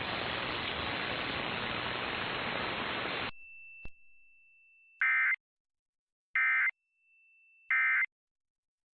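A steady hiss of static that cuts off about three seconds in, followed by the three short, loud digital data bursts of an Emergency Alert System end-of-message (EOM) code, about 1.3 s apart. The bursts mark the close of the required monthly test.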